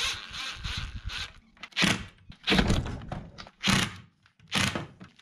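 Makita cordless impact driver driving screws through a steel L-bracket into a wooden frame, running in several short bursts.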